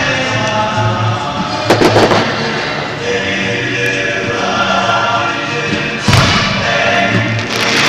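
Fireworks bursting over the show's music: a cluster of bangs about two seconds in and a loud bang about six seconds in, with the music playing steadily underneath.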